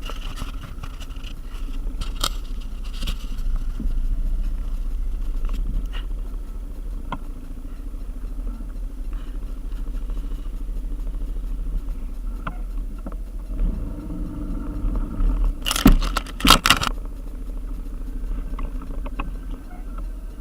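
Motorbike riding: a steady low engine and road rumble with scattered rattles and clicks, and a short run of loud knocks about three-quarters of the way through.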